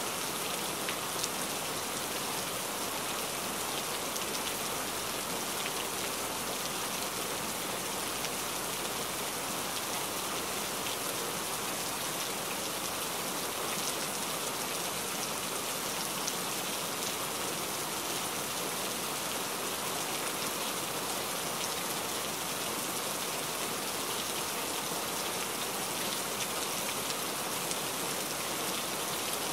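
A steady, even hiss like rain, unchanging throughout, with a few faint taps.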